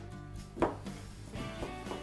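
Background music, with one sharp knock about half a second in from a pneumatic brad nailer being fired into a small wooden window frame.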